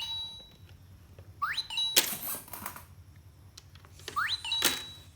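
Toy vending machine's electronic sound effect: twice a rising chirp that settles into a short high beep, each time followed by a brief plastic clatter as coins are pushed into it.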